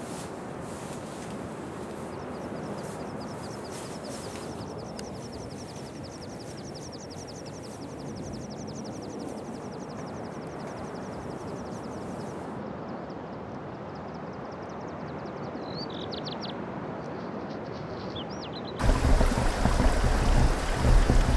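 Glacier meltwater rushing steadily, with a fast high ticking trill over it for several seconds and a few short high chirps. About nineteen seconds in it switches suddenly to much louder, closer rushing water.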